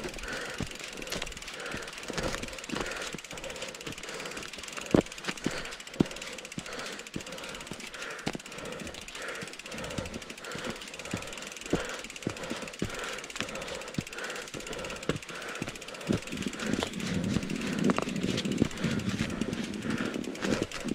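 Mountain bike being ridden over snowy ground: the chain and bike parts rattle, with irregular sharp clicks and knocks throughout. A louder rumble comes in for a few seconds near the end.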